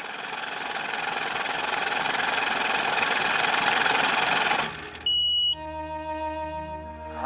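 Intro of a background music track: a hiss-like noise swells louder for about four and a half seconds and cuts off, then a short high beep and sustained synth chord tones begin, leading into a rap song.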